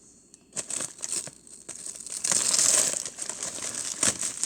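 Plastic bag of graham crackers crinkling and crunching as it is crushed with a granite rolling pin. There are scattered clicks and knocks, and a loud stretch of crinkling about two seconds in.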